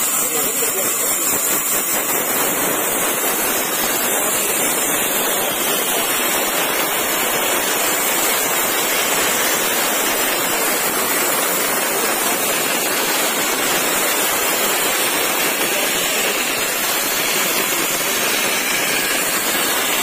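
Band saw cutting lengthwise through an old, weathered timber beam: a loud, steady hiss of the blade in the wood that holds even throughout.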